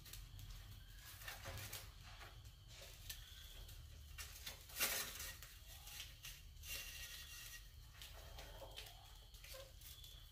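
Faint scratching and rustling of rats moving about on concrete and a wire-mesh cage, with scattered light clicks and one sharper crackle a little before the middle.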